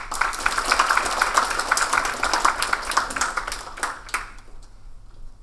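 A small group of people applauding, ending after about four seconds.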